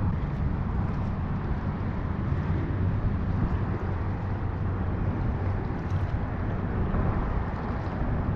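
Boat motor running steadily as the boat travels over open water.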